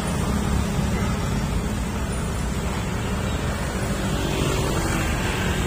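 Steady low rumble of motorcycle and vehicle engines running at walking pace.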